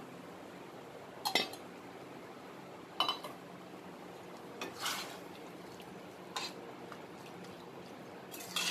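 Perforated stainless-steel ladle clinking against the side of a steel pot while a liquid tamarind and brinjal gravy is stirred: about five sharp clinks, a second or two apart, over a low steady background.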